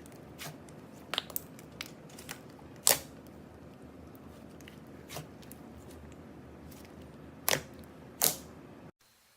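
Glossy slime being pressed and poked, making scattered sharp clicks and pops over a low steady hiss. The loudest pop comes about three seconds in, with two more near the end.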